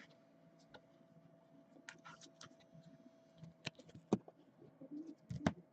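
Faint scattered clicks and taps of trading cards and their plastic sleeves being handled, over a faint steady hum.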